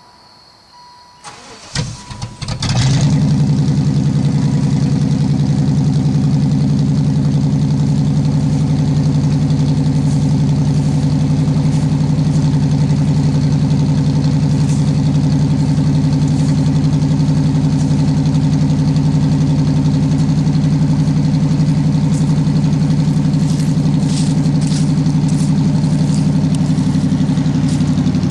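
Chevrolet Caprice's LT1 5.7-litre V8 being cold-started. The starter cranks briefly, the engine catches about three seconds in and settles into a steady idle, which the owner says will not settle at the proper rpm.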